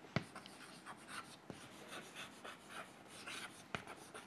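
Chalk writing on a chalkboard: faint scratching strokes, with a few sharp taps as the chalk meets the board, the clearest just after the start.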